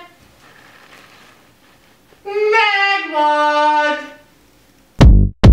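A voice singing a short, high phrase that ends in long held notes, about two seconds in. Near the end, loud electronic music with a heavy drum-machine beat cuts in abruptly.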